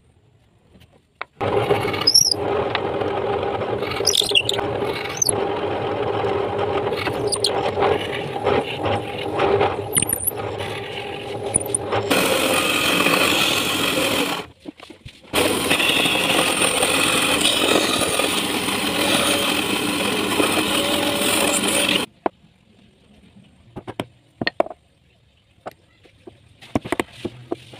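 Power saw cutting a small hardwood block. The motor starts about a second in and runs with a steady whine, then cuts harder and hissier in two long passes with a short break between. It stops sharply, followed by a few light knocks of handling.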